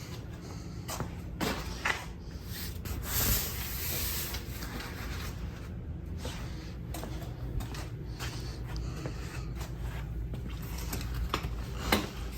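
Rustling and scattered light clicks and knocks of a waterfowl layout blind's fabric cover and frame being handled, over a low steady hum.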